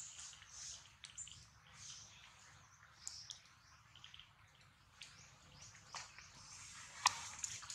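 Faint, high-pitched animal chirps and squeaks keep coming one after another, with a few sharp clicks scattered among them; the loudest click falls about seven seconds in.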